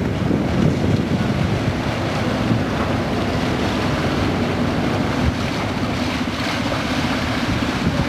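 Wind buffeting the microphone over choppy harbour water, with a boat engine humming steadily from about three seconds in as a small sailing yacht motors past with its sail down.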